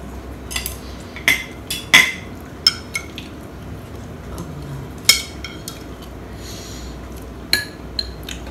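Cutlery clinking against plates and bowls during a meal: a scattered run of short, sharp clinks, the loudest about two seconds in and again about five seconds in.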